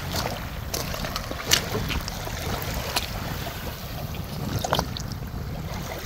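Steady low wind rumble on the microphone, with a few scattered sharp clicks.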